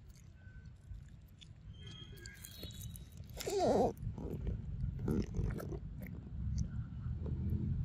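A macaque chewing and biting food, with small wet clicks. About halfway through comes a short swooping vocal sound, the loudest thing here.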